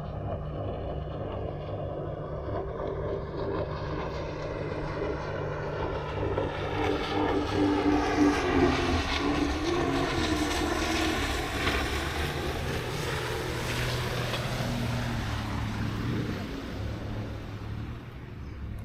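An engine passing by: a steady drone that swells to its loudest about eight seconds in and then fades, its tone sweeping down and back up as it goes past.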